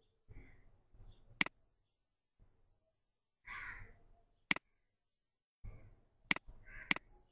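Four sharp computer mouse clicks, irregularly spaced, the last two close together near the end.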